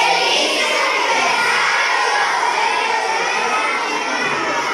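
A large group of children shouting and cheering together, a dense mass of overlapping voices that eases off slightly near the end.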